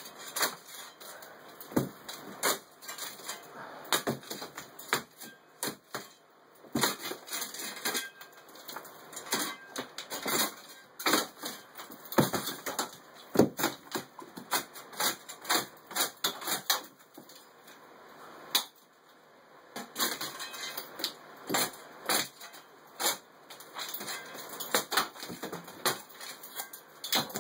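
Old plaster being knocked off a ceiling's wooden lath with a hand tool: a run of sharp, irregular blows and cracks, several in quick succession, with a couple of short pauses.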